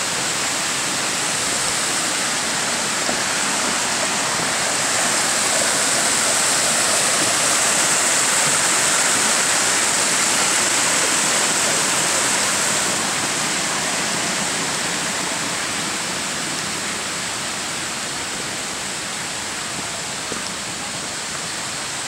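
Water rushing over the rocks of a small cascading stream, a steady noise that swells toward the middle and then eases off.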